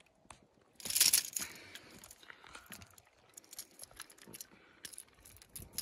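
Handling noises as a hooked largemouth bass is unhooked: a loud burst of rustling about a second in, then scattered small clicks and rattles.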